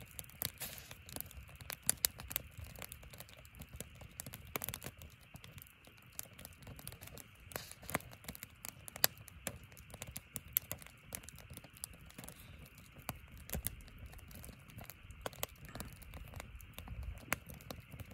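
Firewood burning in a metal fire stand, crackling steadily with irregular sharp snaps and a few louder pops over the low rush of the flames.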